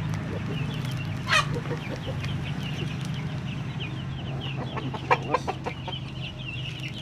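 A flock of Bangkok game chickens clucking and calling, with many short high calls throughout and one louder falling squawk about a second in. A steady low hum runs underneath.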